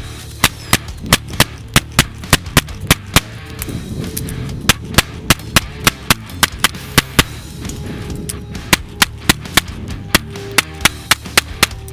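9mm semi-automatic handgun fired rapidly in a timed drill, about three shots a second. About thirty shots come in three strings of roughly ten, with two short pauses between them.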